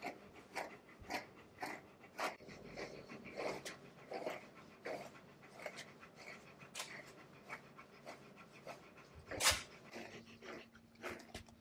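A large Shiloh Shepherd panting steadily at about two breaths a second, with a single louder sound about nine and a half seconds in.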